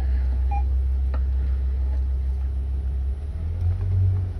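Low, steady rumble of the safari truck's engine idling while the vehicle waits, its note shifting slightly higher about three seconds in.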